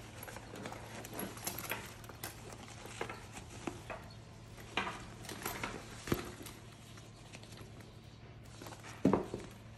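Hands handling a Tumi Alpha 3 ballistic nylon tote bag: fabric rustling with scattered light clicks and taps from its strap hardware, and a louder knock about nine seconds in.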